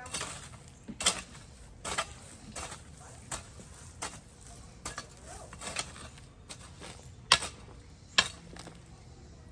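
Garden tool striking and scraping in the dirt with a short, sharp clink about once a second, the loudest a little after seven seconds in, as the ground is worked for harvesting or turning compost.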